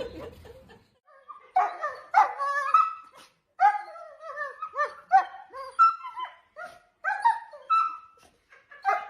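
A dog vocalizing in a quick series of short pitched calls that rise and fall in pitch, about two a second, starting about a second and a half in.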